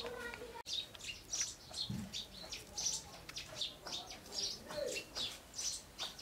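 Small birds chirping, short high chirps repeating about twice a second.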